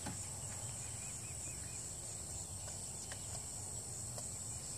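Steady, high-pitched chorus of crickets and other insects, with a faint low hum beneath it.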